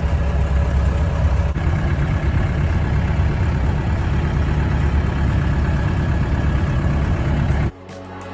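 Steady, loud low rumble of a running vehicle engine, cutting off abruptly near the end.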